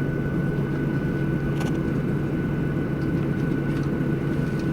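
Steady low cabin drone of a Boeing 737-700 on the ground after landing, with a faint steady high whine over it. A faint click comes about one and a half seconds in.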